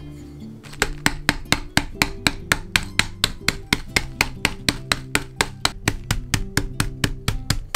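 Wooden rolling pin pounding biscuits in a plastic zip bag on a folded cloth, crushing them to crumbs. The quick, even strikes come about five a second, starting about a second in.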